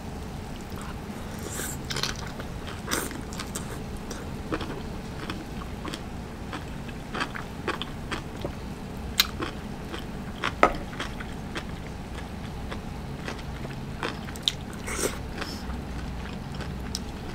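Close-miked chewing of a mouthful of hot pot greens and enoki mushroom dipped in sauce: wet mouth sounds and many short sharp clicks, the loudest about nine and ten and a half seconds in, over a faint steady low hum.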